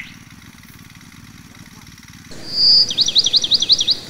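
About two seconds in, a songbird calls: one high held note, then a quick run of about six falling chirps.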